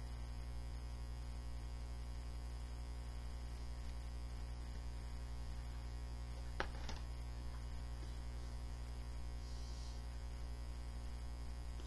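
Steady electrical mains hum with a faint single click about six and a half seconds in, as a thick board-book page is turned.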